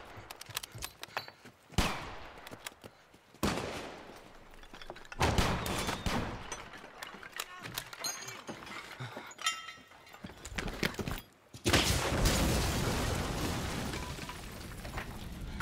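Battle gunfire: separate rifle shots and crackling volleys, then a loud blast about twelve seconds in whose rumble dies away slowly.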